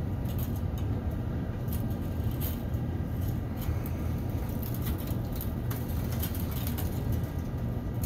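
A steady low rumble of background machinery, with a few faint ticks and rustles as the twisted pairs of Cat6 cables are separated by hand.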